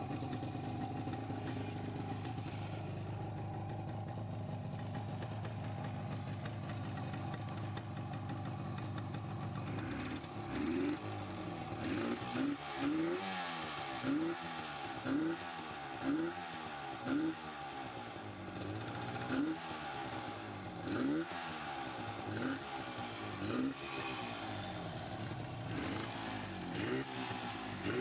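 1985 Suzuki RG250 Gamma's 247 cc water-cooled two-stroke parallel twin idling steadily, then, about ten seconds in, revved in a dozen or more short throttle blips, each a brief rising rasp, coming roughly once a second.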